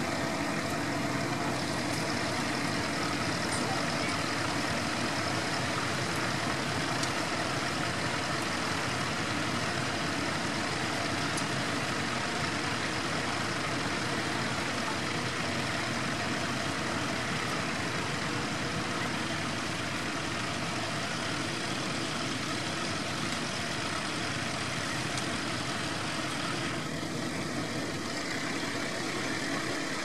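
Tractor engine running steadily under load while pulling a mounted plough through stubble.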